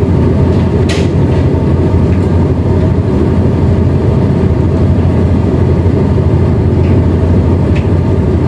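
Tugboat's diesel engine running at a steady low rumble, with two short clicks, about a second in and near the end.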